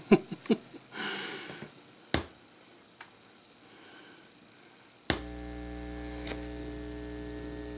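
A few light clicks and a brief rustle, then a sharp click about five seconds in, after which the stereo system's speakers give off a steady mains hum (60-cycle buzz).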